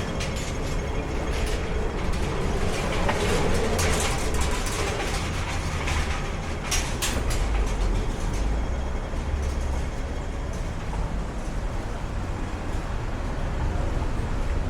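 A moving vehicle running with a steady low rumble, with a few sharp clacks about three to four seconds in and again near seven seconds.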